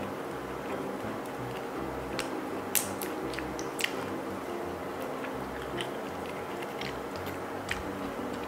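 A person eating razor clams (bamboo clams) in sauce, biting and chewing, with scattered sharp clicks as the shells are handled. The loudest click comes about three seconds in.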